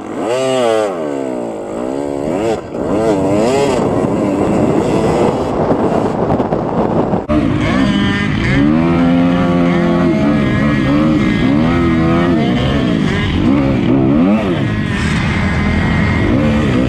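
Dirt bike engine revved up and down in quick sweeps. About seven seconds in it cuts to a dirt bike riding under throttle through sand, its pitch rising and falling as the throttle opens and closes.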